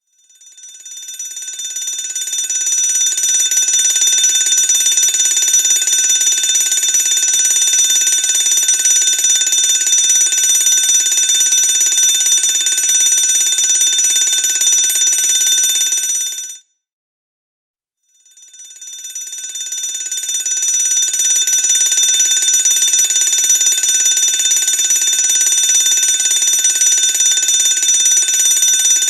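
Electric fire alarm bell ringing continuously. It swells in over the first few seconds, cuts off suddenly about 16 seconds in, and after a gap of about a second and a half swells in again.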